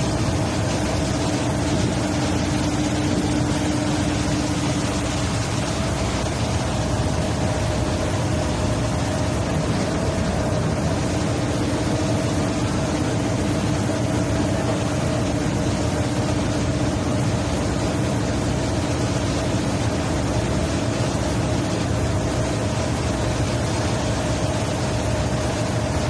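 Steady drone of a boat's engine with a constant hum, over the continuous rush of churning wake water behind the hull.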